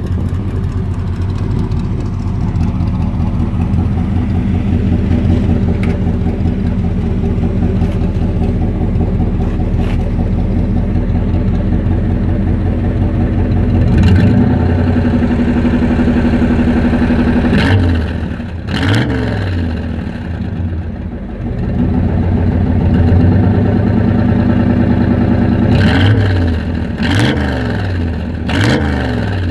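1951 Chevrolet 3100 pickup's engine heard at its side-exit chrome exhaust tip, idling steadily for the first half. In the second half it is revved in short throttle blips, once and then three times near the end, each falling back to idle.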